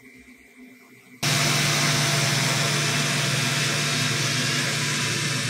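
DJI Mini 2 drone's motors and propellers starting abruptly about a second in and then running steadily at idle: a steady buzz over a strong low hum. The motors were started by pushing both controller sticks down.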